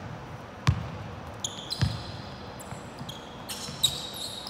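A basketball being dribbled on a hardwood court, two heavy bounces about a second apart, then sneakers squeaking on the floor in short high chirps during the second half.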